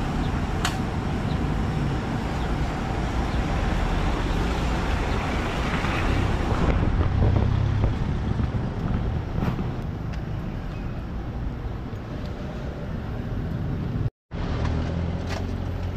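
Steady city street traffic noise: cars and other vehicles running and passing, louder for a moment about seven seconds in. The sound cuts out completely for an instant near the end.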